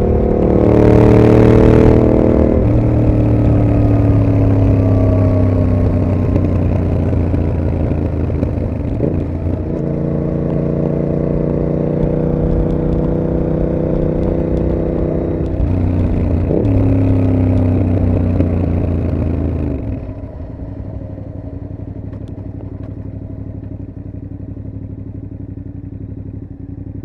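Yamaha MT-07's parallel-twin engine through a Mivv GP aftermarket exhaust, running under load with sudden pitch changes about three times as the gears change. About three-quarters of the way through it drops to a much quieter, lower, steady running for the last several seconds.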